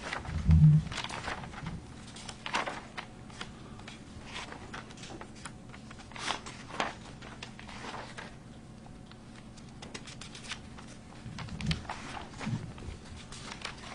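Paper being handled and pages turned, a scatter of soft rustles and small clicks over a faint steady room hum, with one low thump about half a second in.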